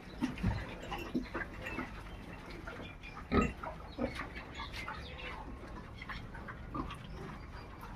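Desi pigs grunting at irregular intervals among scattered knocks and shuffling in the pen, with one louder thump about three and a half seconds in.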